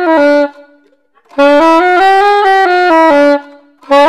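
Selmer Mark VI soprano saxophone being play-tested after cleaning, playing short stepwise phrases that climb and come back down. One phrase ends just after the start, a full phrase follows after a brief breath, and another begins near the end.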